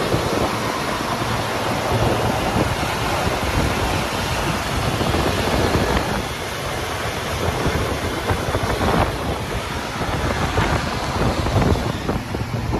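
1966 Dodge Dart GT's V8 engine idling steadily after a cold start, a low even rumble heard from beside the open engine bay.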